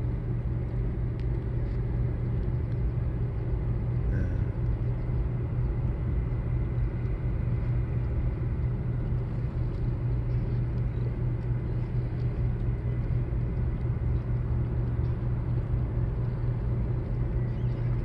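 A boat's engine running steadily: a constant low drone with a rumble beneath it.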